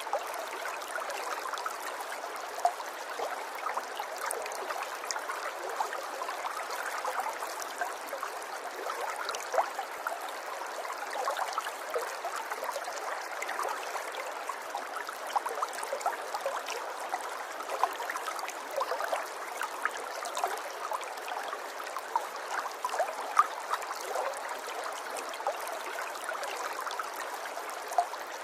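River water flowing over rocks, a steady babbling and gurgling with many small splashes.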